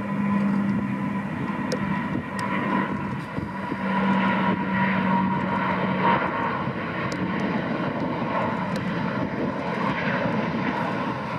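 Airbus A330neo's Rolls-Royce Trent 7000 turbofans at climb power just after takeoff: a steady jet roar with a low droning tone that fades out about six seconds in.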